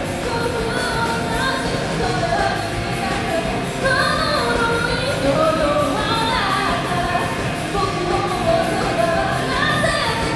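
Pop-rock song with a sung lead vocal over a band and a steady beat.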